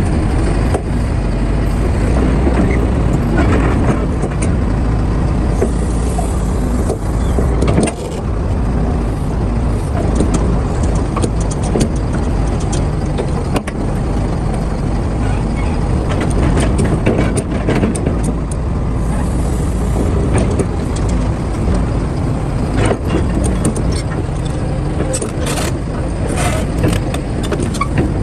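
Excavator's diesel engine running steadily under work, with scattered metallic knocks and clanks, several of them close together near the end.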